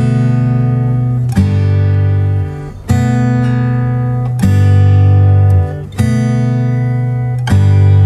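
Background music of strummed acoustic guitar chords, a new chord struck about every one and a half seconds.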